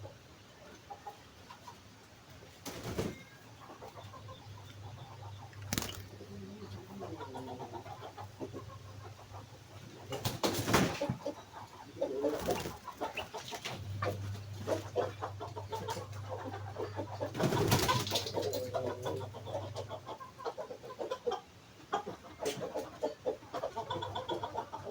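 Sooty-headed bulbul (kutilang) calling in short phrases, with other bird calls in the background and several loud bumps.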